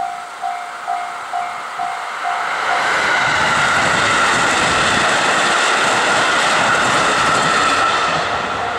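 Japanese level-crossing bell dinging about twice a second. About three seconds in, a passing train's loud rushing noise covers it for about five seconds and then begins to fade.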